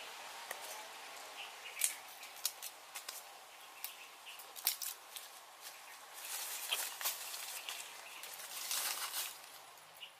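Rustling and crackling of dry leaves and twigs, with many sharp snaps and clicks, and louder stretches of rustling about six seconds in and again near nine seconds.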